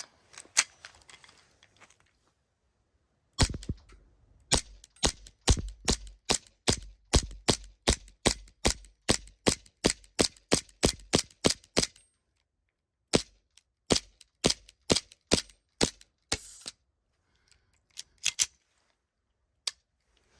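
Gas blowback airsoft pistol firing a long string of shots, about two a second, with its slide cycling on each shot. After a pause there is a short run of shots, then a brief hiss and a few scattered shots near the end.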